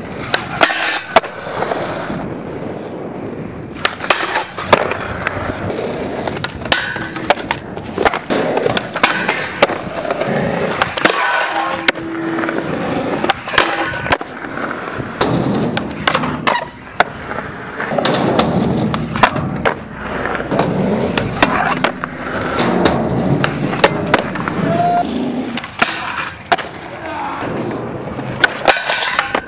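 Skateboards rolling on concrete, with repeated sharp pops, landings and clacks of board and trucks, and slides and grinds on a metal flat rail.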